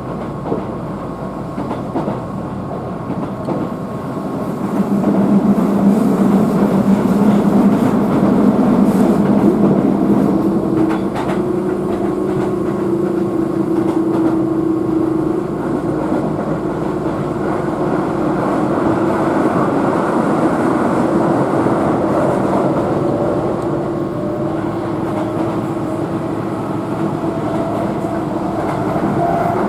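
Keihan Main Line express train running along the track, heard from inside the car: a steady rumble of wheels on rail with humming tones, growing louder about five seconds in, and a tone slowly rising in pitch in the second half.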